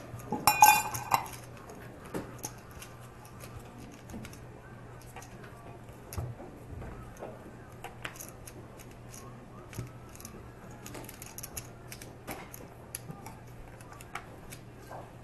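Clay poker chips clicking and clattering as players handle their stacks at a card table, with scattered light clicks and a louder clatter about half a second in.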